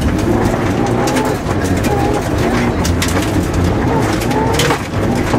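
Mitsubishi Lancer Evolution rally car's turbocharged four-cylinder engine running hard at speed on gravel, heard inside the cabin, with stones clicking and rattling against the underbody.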